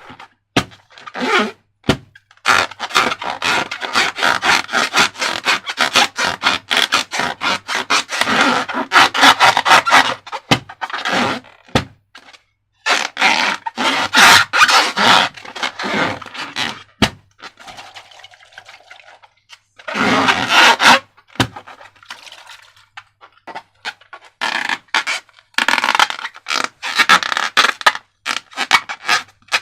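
Slime being worked and squished, making dense sticky crackling and scraping sounds in bursts, with a few short pauses.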